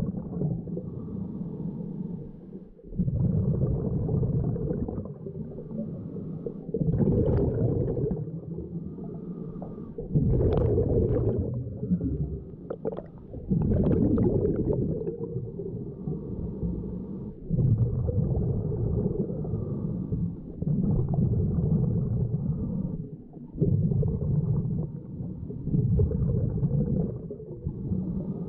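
Scuba diver breathing through a regulator underwater: exhaled bubbles rumble and gurgle in regular bursts every three to four seconds, with quieter stretches of inhaling in between.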